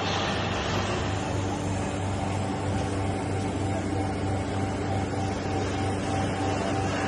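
Vertical chamber vacuum packing machine running with a steady mechanical hum; a further steady tone joins about a second in.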